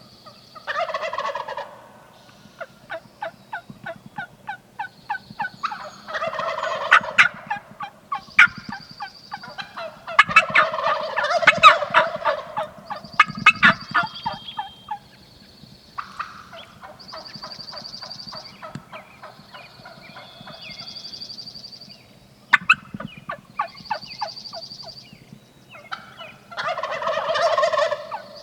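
Wild turkeys gobbling: several loud, rattling gobbles about a second long, one near the start, one about six seconds in, a longer spell around eleven seconds in, and one near the end. Between the gobbles come runs of quick, sharp turkey yelps, and a high whistle repeats every second or two.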